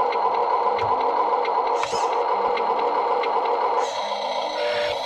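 Small electric motor in a Huina 1575 RC truck whirring steadily, stopping about four seconds in.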